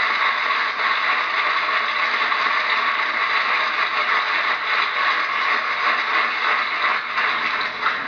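Steady buzzing drone of aerobatic propeller planes flying overhead, heard through a television's speaker.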